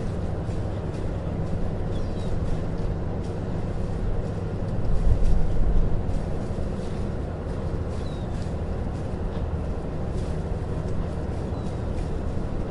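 Harbor marina ambience: a steady low rumble that swells briefly about five seconds in, with light clicks and knocks and a few faint high chirps over it.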